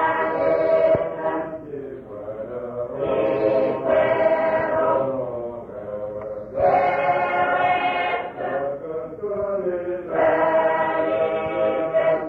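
A group of voices singing a slow, chant-like choral song in long held phrases of about two seconds each, with short breaths between them.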